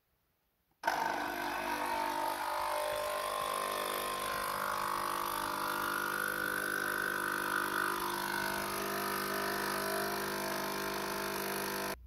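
The pump of a Nespresso De'Longhi Inissia capsule machine starts suddenly about a second in and runs with a steady, loud buzzing hum, forcing water through the machine with no capsule in: the first-use rinse that flushes it out.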